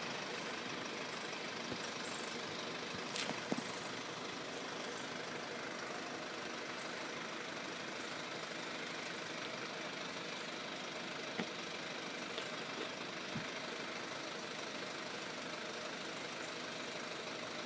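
Steady background hum of road vehicles idling while they wait at the level crossing, with a few faint knocks.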